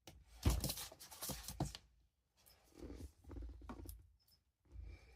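Light scratching and rustling with several sharp clicks, coming in short bursts: most of the clicks fall in the first two seconds, with softer bursts after.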